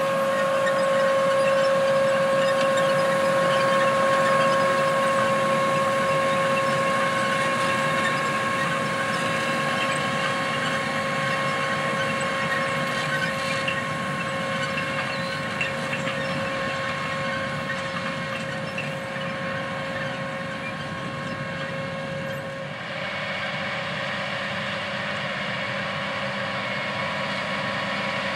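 John Deere 9370R four-wheel-drive tractor pulling a 24-row John Deere 1775NT corn planter at work, running steadily with a constant high whine over the engine drone, slowly fading as it moves away. About 23 seconds in the sound changes abruptly: the whine drops out and a lower, steady drone continues.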